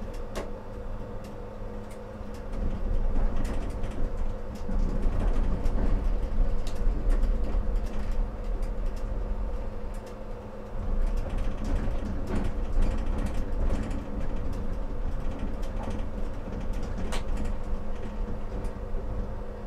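Tram running along city track, heard from inside the driver's cab: a low rumble of wheels on rails that swells and eases, a steady hum, and scattered clicks and knocks as the wheels cross rail joints and track crossings.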